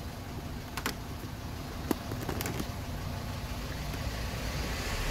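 Low steady rumble of background noise with a few short, light clicks in the first three seconds.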